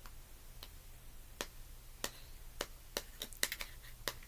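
Scattered sharp clicks, about a dozen at irregular intervals, typical of keys being pressed on a computer keyboard, over a faint low hum.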